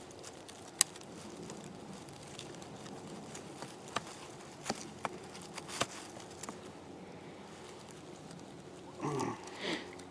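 Knife blade carving a notch into a hard wooden stick: a handful of sharp, separate clicks and small cracks as the blade bites into the wood, over a faint steady background. About nine seconds in, a brief grunt-like vocal sound.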